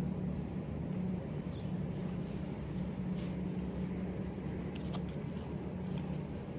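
Steady low hum of a running motor, with a few faint short high chirps.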